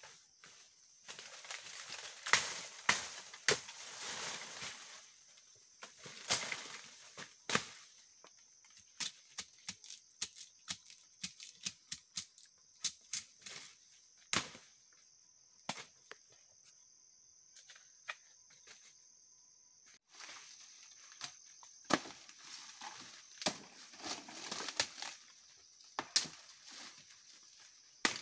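Dry bamboo leaves and twigs crackling and snapping in clusters of sharp clicks as something moves through a bamboo thicket, easing off for a few seconds past the middle. A steady high insect drone runs underneath.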